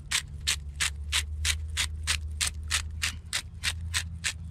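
Handheld pepper grinder twisted back and forth, grinding peppercorns in a steady run of short scratchy strokes, about five a second.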